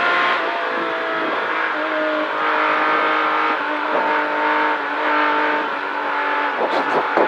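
Air-cooled flat-six of a 1973 Porsche 911 rally car running hard on a stage, heard from inside the car, its pitch stepping up and down as the driver works through gears and corners.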